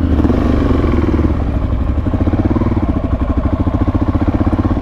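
Motorcycle engine running steadily at low revs, with an even pulsing beat.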